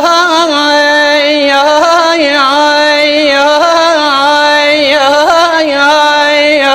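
A male singer holding one long, unbroken vowel in Iraqi Arabic style, the pitch turning in quick melismatic ornaments around a steady note.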